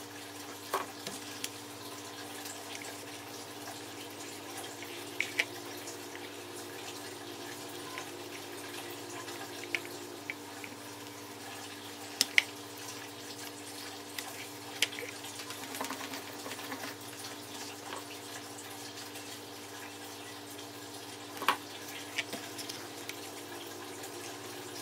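Soldering iron pressed onto copper solder wick over tiny board pads, wicking off solder: faint crackling with scattered sharp ticks over a steady low hum.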